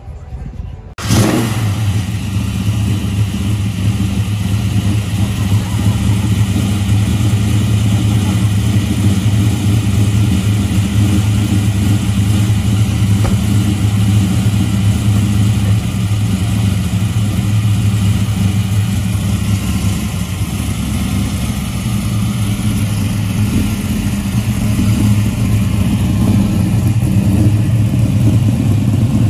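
Car engine running steadily and loudly. It starts abruptly about a second in, holding an even pitch with no clear revving.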